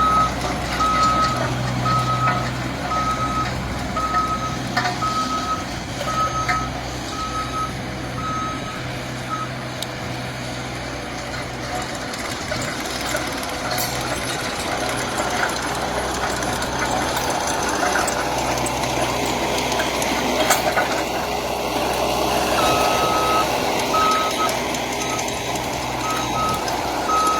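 Skid steer loader engine running, with its reversing alarm beeping about once a second; the beeping stops for a long stretch in the middle and starts again near the end. A rougher rushing noise swells in the middle stretch.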